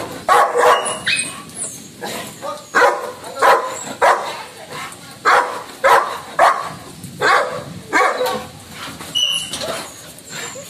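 Labrador barking over and over in anger, about one bark a second, with a short pause about a second in before the barking picks up again.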